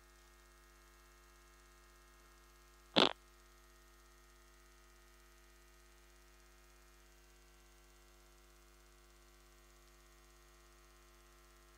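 Faint steady electrical mains hum, with a single short sharp sound about three seconds in.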